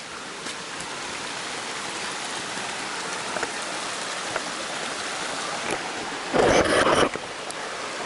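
Creek water running in a steady rush over rocks, with a short, louder burst of noise lasting under a second near the end.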